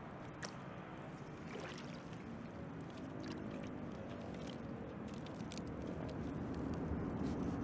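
Shallow lake water sloshing and splashing around rubber boots and a shovel blade as a plant is pushed into the muddy bottom, with a few light clicks.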